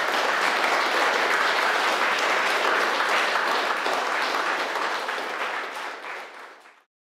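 Audience applauding steadily, a dense even clatter of many hands clapping, tapering slightly and then cutting off suddenly near the end.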